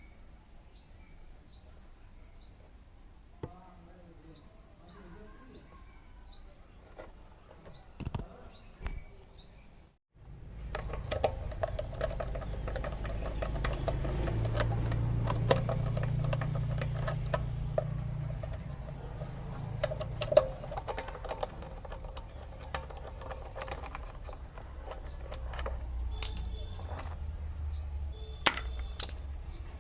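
Small birds chirping over and over with short falling calls. About a third of the way in, after a brief cut, a much louder, steady low rumble starts with scattered clicks and shifts in level a few times.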